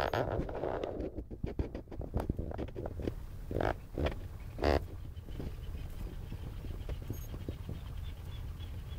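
Cats growling low at each other during a standoff, with two short, sharp hisses about three and a half and four and a half seconds in.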